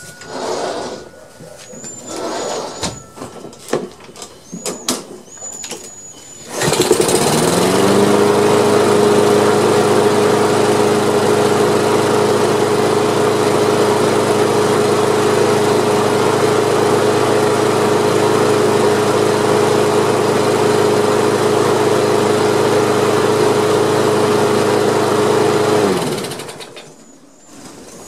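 Husqvarna push mower's single-cylinder Kohler engine starting about six seconds in, quickly rising to a steady speed and running evenly, then shut off near the end and winding down. It is running really good and strong.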